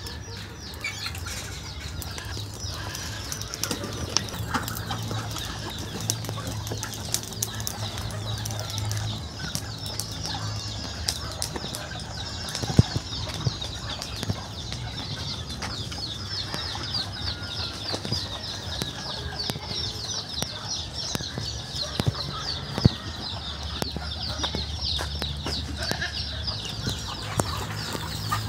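Outdoor backyard ambience: a steady high chirping chorus, with scattered light clicks and knocks and a low steady hum underneath, and two sharper knocks about halfway and two-thirds of the way through.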